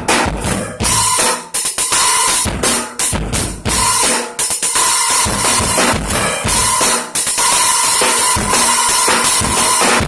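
Acoustic drum kit played in a fast freestyle solo: quick snare and bass drum hits under loud, sustained crashing cymbals.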